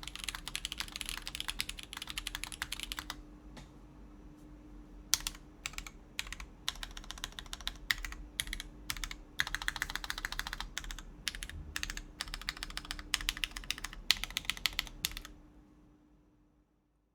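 Typing on a mechanical keyboard fitted with lubed Everglide Tourmaline Blue clicky switches, in a polycarbonate-plate NovelKeys Classic TKL case with GMK keycaps: fast runs of crisp clicking keystrokes, broken by a short pause about three seconds in. The typing stops about fifteen seconds in and fades out.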